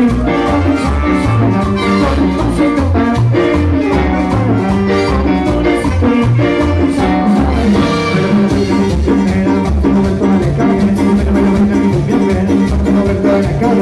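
Live salsa band playing, with a pulsing bass line and drums and percussion keeping a steady beat.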